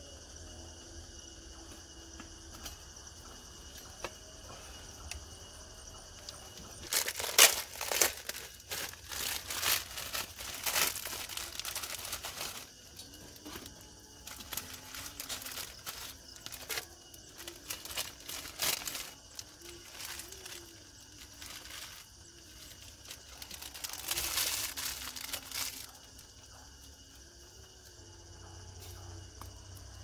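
Plastic packaging crinkling and tearing as it is handled, in a dense spell from about seven to thirteen seconds in, scattered rustles after, and another burst near twenty-five seconds. Crickets chirr steadily and faintly underneath.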